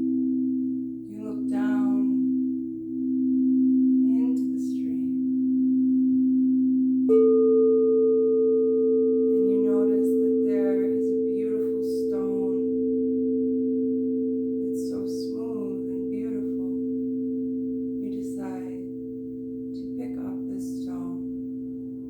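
Singing bowls ringing in long, steady overlapping tones; about seven seconds in another, higher bowl is struck and joins the drone.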